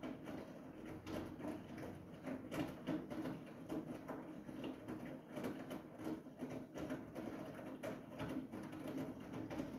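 Siemens iQ700 washing machine running its final spin cycle: a steady low hum from the drum with irregular light knocks and clicks.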